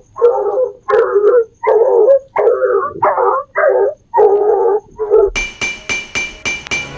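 A dog barking about eight times in a quick, even series over a faint steady cricket trill. About five seconds in, music starts with a sharp, regular beat.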